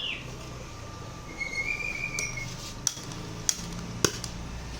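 Four sharp clinks of small hard objects, as of metal or glass parts being handled, over a steady low hum.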